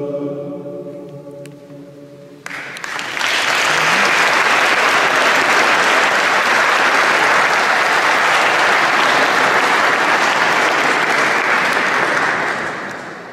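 A men's choir's final held chord fades away in a church's reverberation. Then the audience breaks into applause about two and a half seconds in, which stays steady and tapers off near the end.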